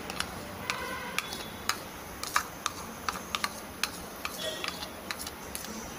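A metal spoon clicking and scraping against a ceramic bowl as the last of a custard mixture is scraped out into a pan of milk. The clicks are sharp and irregular, a few ringing briefly about a second in, over a steady low hiss.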